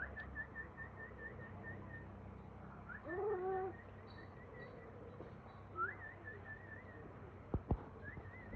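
Pigeons calling while being fed. Runs of short, quickly repeated high chirps come and go, with one louder, lower call about three seconds in. Two sharp knocks come near the end.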